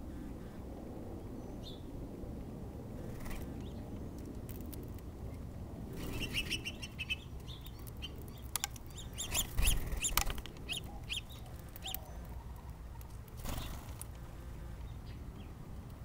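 Small birds at a hanging seed feeder: wings fluttering as they land and take off, loudest about ten seconds in, with a cluster of short high chirps about six seconds in and a few more later.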